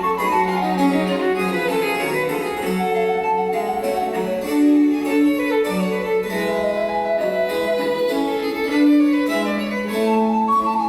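Instrumental music: a melody of held notes over a changing accompaniment.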